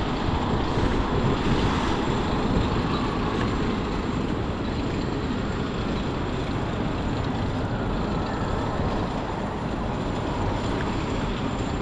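Steady road-traffic noise: a continuous low rumble of passing vehicles with no distinct single engine.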